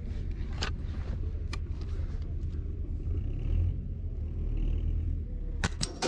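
Sharp clicks from rifles being loaded and fired on a prone shooting line. Two single clicks come in the first couple of seconds and a quick run of three near the end, over a low, steady rumble.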